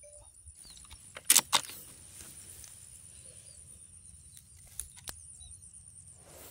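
Two sharp clicks about a second in, then two lighter clicks near the end, from handling a PCP air rifle and its scope. Behind them, a steady high insect drone and scattered faint bird chirps.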